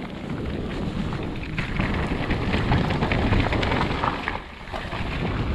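Wind buffeting the microphone over the rumble of a Marin electric mountain bike's tyres rolling down a dirt trail, with frequent small clicks and rattles from the bike. The rumble eases briefly about four and a half seconds in.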